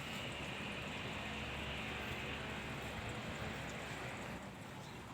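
Low, steady engine rumble with a hiss above it, easing off about four seconds in.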